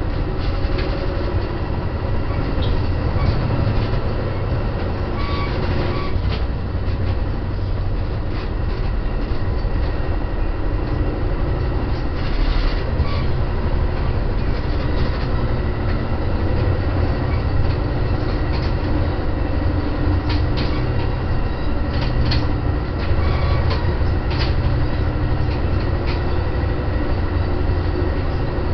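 Steady low rumble of a commuter train car running on the rails, heard from inside, with a few sharp clicks and rattles here and there.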